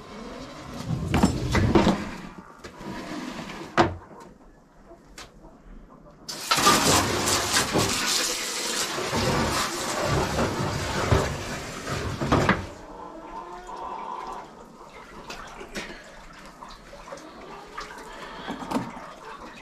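Water from a hose rushing and splashing into a metal stock-water tub. It starts abruptly about six seconds in and stops abruptly about six seconds later, after a few sharp knocks and clanks in the first seconds.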